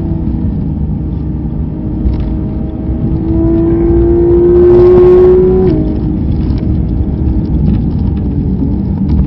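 Race car engine heard from inside the cockpit at full throttle on a straight, its note climbing as it accelerates. About halfway through the pitch drops sharply at an upshift, then climbs again, with steady road and wind rush underneath.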